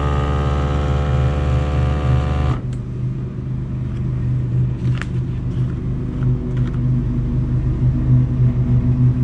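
Countertop vacuum sealer's pump running steadily as it draws the air out of a plastic bag, then cutting off suddenly about two and a half seconds in. A low steady hum carries on afterwards, with a faint click about five seconds in.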